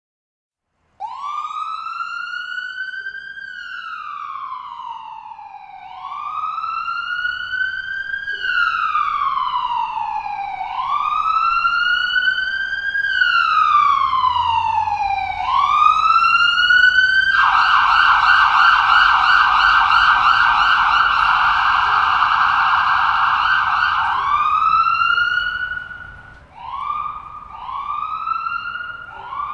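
Distant ambulance siren wailing in slow rising-and-falling sweeps about every five seconds. About halfway through it switches to a rapid warble for several seconds, then returns to the wail, with short quick rises near the end. It grows louder as it goes.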